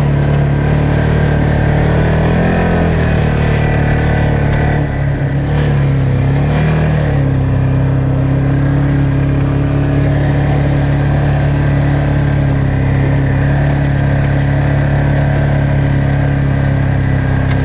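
ATV engine running under way, its pitch rising and falling for the first several seconds, then holding steady.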